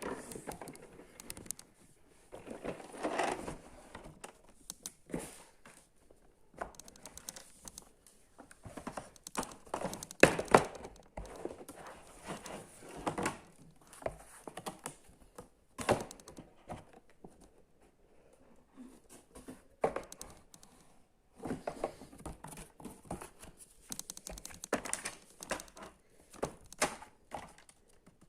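Packaging being handled and opened: irregular crinkling, rustling and tearing, with scattered knocks as items are set down.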